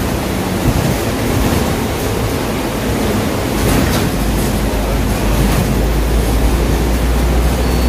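Cabin noise inside an Alexander Dennis Enviro500 MMC double-decker bus on the move: a steady low engine and road rumble, with a brief rattle about four seconds in.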